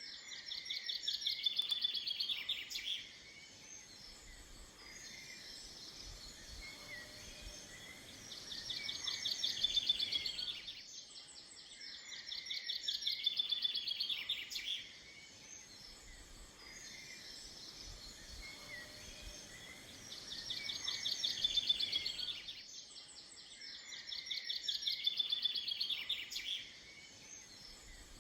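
Chaffinch singing its song five times, each phrase a fast run of notes about three seconds long, with pauses of a few seconds between. Other birds of the dawn chorus call faintly behind it.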